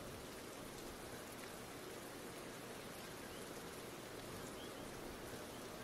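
A faint, steady hiss of background ambience, with a few faint short high chirps in the second half.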